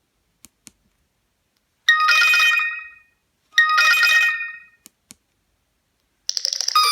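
Nokia Asha 302 ringtones: two identical ringing phrases about a second and a half apart, each made of several bright steady tones that die away. A few faint clicks come before and between them, and near the end a different, fuller ringtone begins.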